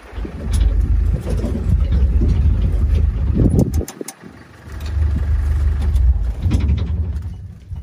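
A game-drive vehicle on the move: a heavy, uneven low rumble of engine and road mixed with wind buffeting the microphone. The rumble drops away briefly about four seconds in, then returns.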